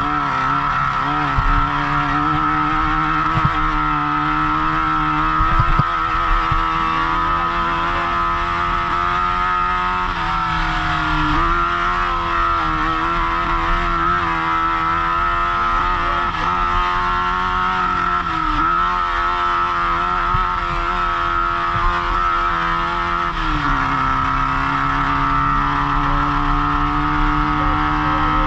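Off-road race vehicle's engine running hard under load, heard onboard, its pitch dipping and recovering several times as the throttle comes off and back on, then settling to a lower steady note near the end. A few short knocks come through over the engine.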